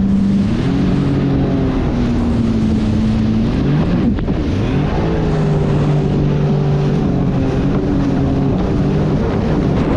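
Sea-Doo jet ski engine running at speed, its pitch rising about a second in, then dropping and climbing again around four seconds in as the throttle is eased and opened. Wind and rushing water hiss underneath.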